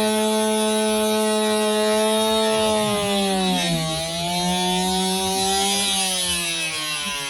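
Stihl MS271 two-stroke chainsaw running at high revs with a steady high whine. Its pitch sags briefly about three and a half seconds in, then recovers, and drops near the end.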